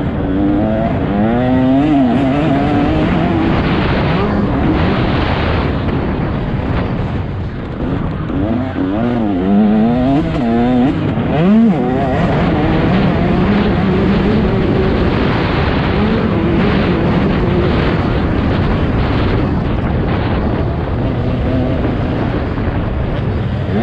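Motocross dirt bike engine revving hard, its pitch climbing and dropping again and again as the rider accelerates and shifts or backs off, over steady wind and track noise.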